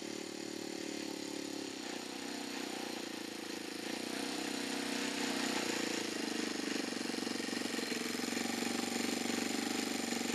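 Saito FG-20 20cc four-stroke gasoline engine on an RC Cessna 182 model idling as the plane taxis on grass. The steady idle grows louder about halfway through as the model comes closer.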